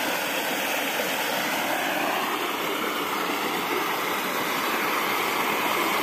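Small creek waterfall, water pouring over rock with a steady rushing noise.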